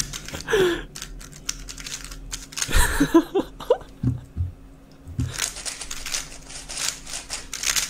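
Plastic 3x3 speedcube handled with a few scattered clicks and knocks, then turned at high speed from about five seconds in: a dense, rapid run of clicking and clacking as a timed solve begins.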